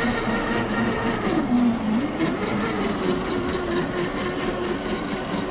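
Electric RC crawler's INJORA 550 brushed motor and geared drivetrain whining as it drives, its pitch easing down about one and a half seconds in, then climbing again and holding steady.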